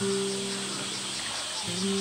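Background music of held notes that change pitch every half second or so, over a steady high buzzing of insects.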